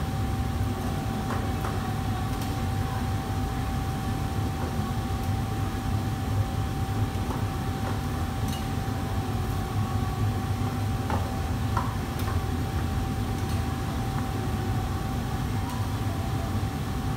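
Steady low roar of a commercial kitchen's wok range and extraction hood running, with a constant high hum over it. A few light metal clinks come and go now and then as utensils touch pans.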